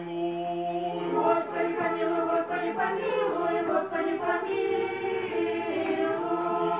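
Orthodox church choir singing liturgical chant a cappella, several voices holding long sustained chords.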